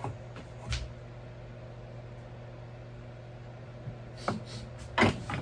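Steady low hum of a quiet workshop, with a few light clicks and knocks of things being handled near the start and again in the last second or so.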